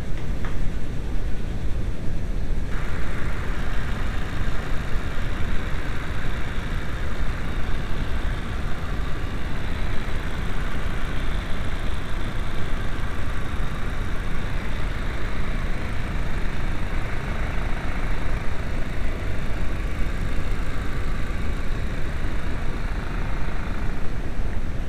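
VW Passat 1.8T turbocharged four-cylinder (AWM) engine running steadily, with a higher hiss coming in about three seconds in. The engine has a worn turbocharger.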